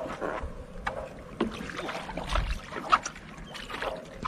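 Paddle dipping and splashing in the water beside a small wooden boat, with scattered knocks against the hull. The sharpest knock comes about three seconds in.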